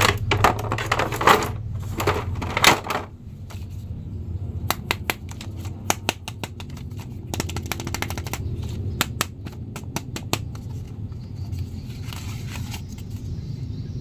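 Clear plastic packaging tray crinkling and crackling as action figures are handled and pulled out of it: irregular sharp clicks, thickest in the first few seconds and again from about five to ten seconds in, over a steady low hum.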